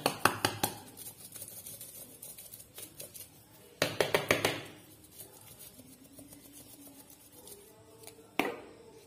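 Spice shakers shaken over food: a quick run of rattling shakes at the start, a second run at about four seconds, and a single knock near the end.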